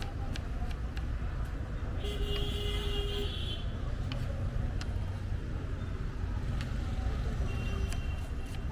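Steady low rumble of street traffic, with a vehicle horn sounding for about a second and a half about two seconds in and a shorter, fainter one near the end. A few sharp taps from a knife chopping onions on a wooden board.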